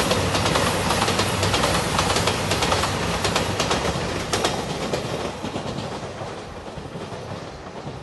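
JR Shikoku 2700 series diesel express train passing close by, its wheels clattering over the rail joints. The sound fades steadily from about halfway through as the train pulls away.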